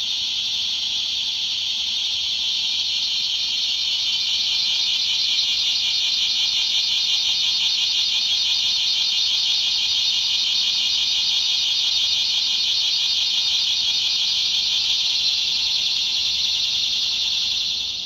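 Recorded bear cicada (kumazemi) call played back through the small speaker of a SO-TA cicada-sound gachapon keychain: a loud, high, rapidly pulsing buzz that runs without pause and cuts off right at the end.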